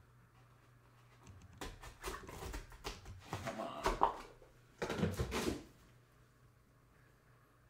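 Cardboard trading-card box being torn open by hand: a run of irregular ripping, crackling tears over about four seconds, loudest near the middle and again just before it stops.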